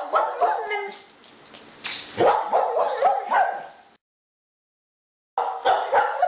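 Dog barking and yipping in quick runs, cut off abruptly for about a second and a half before the barking starts again.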